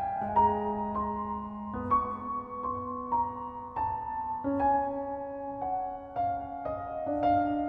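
Slow piano music: single notes sounding one after another, about one to two a second, each held and overlapping the next.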